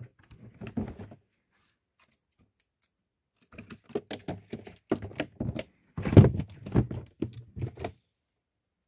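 Irregular knocks and thumps against a plastic ice chest as a freshly caught mojarra goes into it: a few soft ones about a second in, then a quick run of three or four a second for about four seconds in the second half.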